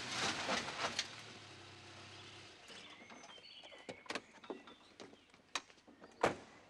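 A minivan's engine and tyre noise die away as it comes to a stop. Then come clicks and knocks of its door being opened and handled, and a car door is slammed shut about six seconds in, the loudest sound.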